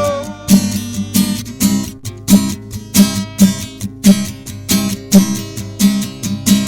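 Acoustic guitar strummed in a steady rhythm, with sharp percussive strokes about two to three a second.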